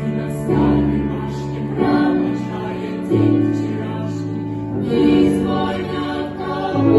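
Music: a small vocal ensemble singing held chords without words, to accompaniment, the chord changing about every one and a half seconds.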